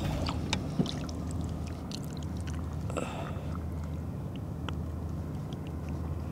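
A zander lifted by hand out of the water beside a boat: splashing and dripping water with a few sharp clicks in the first second, over a steady low rumble.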